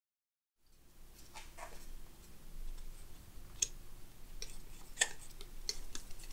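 A metal palette knife mixing oil paint on a palette: scattered sharp clicks and short scrapes as the blade taps and drags through the paint, over a faint low hum. It fades in about half a second in.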